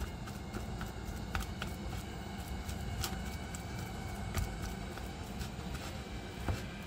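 Plastic spatula mashing boiled potatoes in a plastic bowl, with scattered clicks and taps as it strikes and scrapes the bowl, over a steady low rumble in the background.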